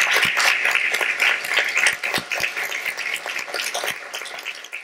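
Audience applauding, many hands clapping at once, dying down toward the end.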